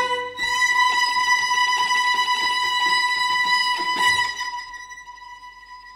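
String quartet playing a loud, high held note together, with a rough, scratchy layer beneath it. About four seconds in the rest of the sound drops away and the high note carries on, quieter.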